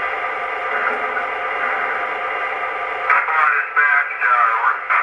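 Two-way radio chatter played by an MTH S-scale diesel's onboard sound system as a DCC function. A steady hiss of radio static runs for about three seconds, then a narrow, tinny radio voice speaks in short bursts: the engineer and station master exchanging calls to stop the train.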